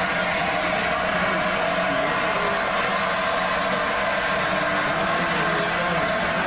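Steady, unbroken hiss of steam escaping from a standing steam locomotive.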